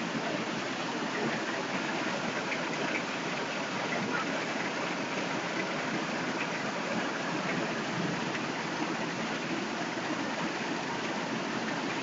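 Heavy rain pouring down in a steady, even hiss, falling on trees and a flooded street.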